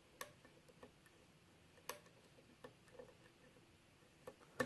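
Faint, irregular clicks of a short-hook lock pick probing the pins inside a six-pin Euro cylinder with a Yale Y1 keyway during single-pin picking. The clicks come singly, a second or so apart, with the sharpest about two seconds in and just at the end.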